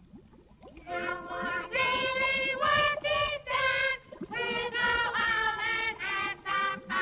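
Cartoon soundtrack of several voices singing a tune in short, separate held notes, coming in about a second in.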